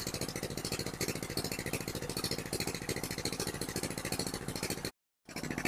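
A small engine running steadily with a rapid, even thumping. The sound cuts out briefly about five seconds in.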